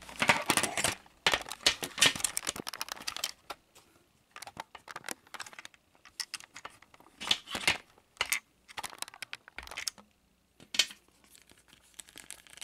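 Handling noise: irregular clicks and rustles of a plastic action figure and the camera being handled and moved about, in bunches with short quiet gaps and a few louder clicks.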